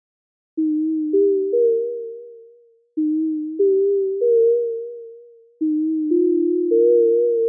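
Subtractor software synthesizer in Reason 12 playing a mellow, almost pure-toned patch. Three notes enter one after another and stack into a chord; this happens three times, and each chord fades away.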